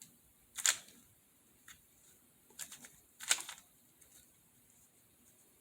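Plastic layers of a MoYu RS3M 2021 maglev 3x3 speedcube being turned by hand: a handful of separate sharp clacks, the loudest a little past three seconds in.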